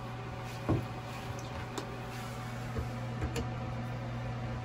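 A few light clicks and taps from a screwdriver working the brass test cocks of a Wilkins RPZ backflow preventer as they are bled open, over a steady low hum.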